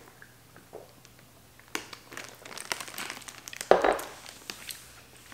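Crinkling and rustling handling noise, a run of small crackles that starts after a quiet first second and a half, with one louder, sharper rustle about three and a half seconds in.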